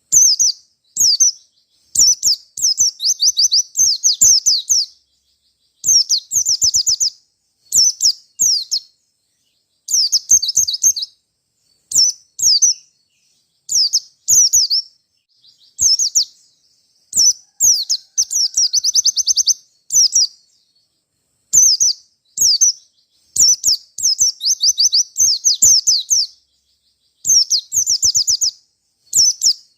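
White-eye (pleci) singing loud, high, fast song phrases of rapid sweeping notes and trills, in bursts of about a second with short breaks between, over and over.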